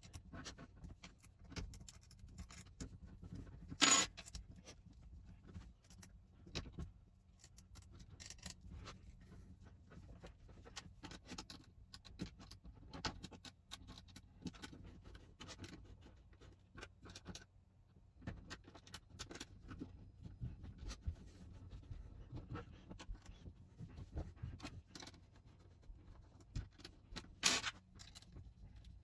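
Faint, scattered small clicks and light scrapes of an Allen key working the hex screws out of a King Arms PDW airsoft rifle's rail handguard, with two sharper clicks about four seconds in and near the end.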